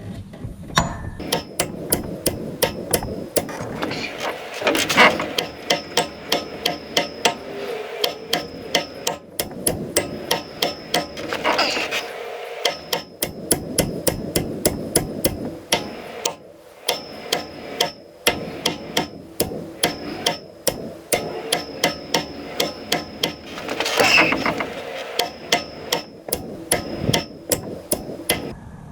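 Hammer blows driving a harmonic balancer onto the crankshaft snout of a Ford 302 V8, struck over and over at about two a second with a metallic ring after each hit. The balancer is tight and goes on slowly under the blows.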